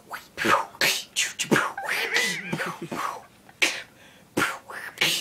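Human beatboxing: a quick, uneven run of sharp mouth clicks, kicks and hissed snare sounds, with a short wavering pitched vocal sound about two seconds in.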